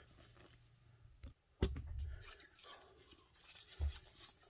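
Hands wrapping electrical tape around a small wooden plug: quiet rustling and crackly peeling of tape as the roll is handled. A low thump comes about one and a half seconds in, and another shortly before the end.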